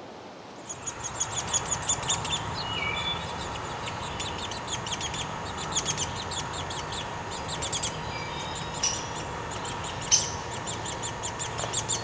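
Woodpeckers calling: busy runs of rapid, high, sharp chirps that start about a second in, with a few short down-slurred notes, over a low steady hum.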